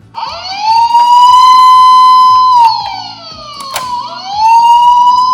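Toy fire engine's electronic siren wailing: the pitch rises, holds high for a couple of seconds, falls, then rises and holds again near the end. A few sharp clicks sound over it.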